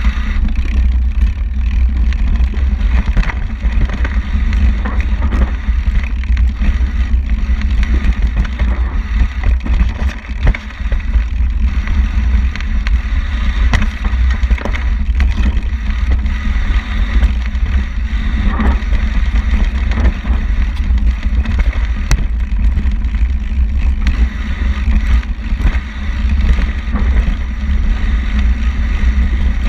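Wind buffeting a mountain bike rider's action-camera microphone during a fast singletrack descent, a constant heavy rumble, with the bike clattering and knocking over the rough trail throughout.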